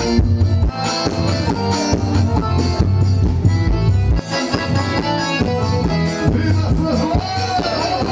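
Forró pé de serra played live: accordion over a steady drum beat.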